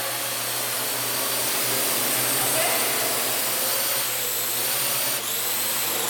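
Parrot AR.Drone 2.0 quadcopter's four electric motors and propellers whirring steadily as it hovers, the top of the sound thinning slightly near the end.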